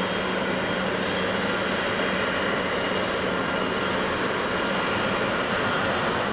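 Twin-engine jet airliner's turbofan engines running at low taxi power: a steady roar with a faint, steady high whine and a low hum, unchanging throughout.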